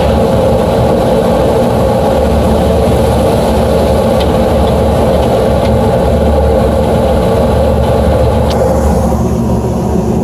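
Gas furnace running with its burners lit, a loud steady hum from the inducer and blower. Part of the hum eases about nine seconds in.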